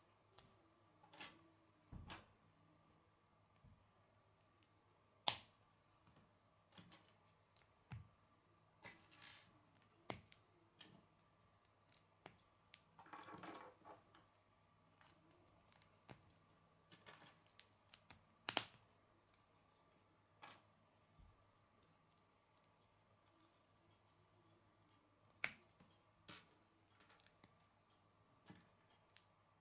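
Hard plastic K'nex connectors and rods clicking and snapping together as they are assembled by hand: scattered sharp clicks every second or two, with a longer rattle of loose pieces about 13 seconds in. A faint steady hum runs underneath.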